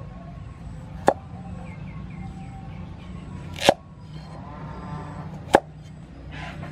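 Cleaver chopping through a carrot into a thick round wooden chopping board: three sharp knocks about two seconds apart.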